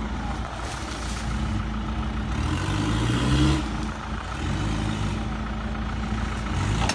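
Off-road 4x4's engine running under load, revving up for a second or two about a third of the way in, then dropping back abruptly.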